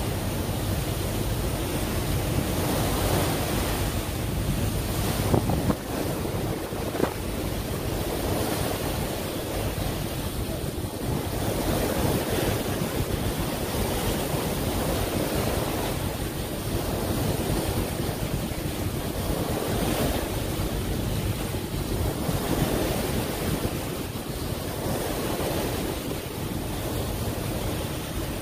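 Water rushing and washing past the side of a moving boat, with wind buffeting the microphone. The wash swells and eases every few seconds.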